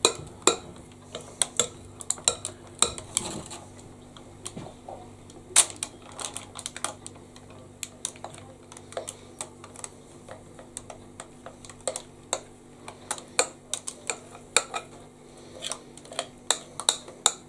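A metal spoon clinking and scraping against a glass mixing bowl as banana bread batter is scooped out into a paper-lined loaf tin: irregular sharp clicks, a few a second.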